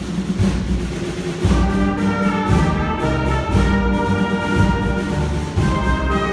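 School concert band playing: low drum beats at first, then the brass section comes in about a second and a half in with held chords.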